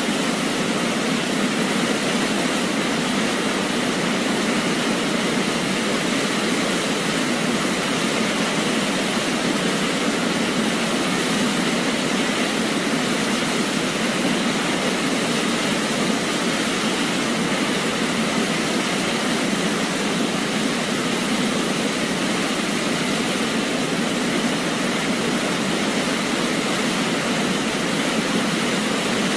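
Waterfall: water falling and crashing in a steady, unbroken rush.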